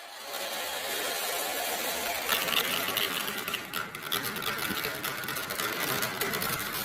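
Many marbles rolling and rattling along rain-gutter tracks: a dense, steady rolling rattle that swells up from quiet at the start, with a thicker run of quick clicks from about two seconds in.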